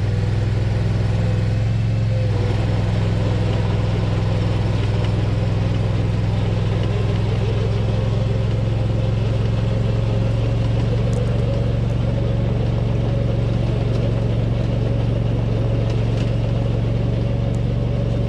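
Struck Magnatrac 7000 mini-dozer's engine running steadily at a constant speed, with no change in pitch.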